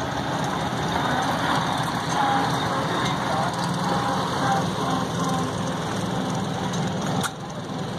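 Engine of a 1928 Plymouth homemade tractor running steadily at low speed as it drives slowly past. The sound drops suddenly about seven seconds in.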